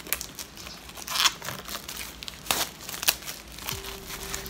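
Plastic wrapping crinkling and tearing as it is pulled off a paperback novel, in a few sharp rustling bursts.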